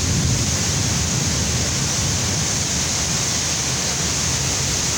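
Heavy rain pouring down steadily in strong wind, with gusts buffeting the phone's microphone.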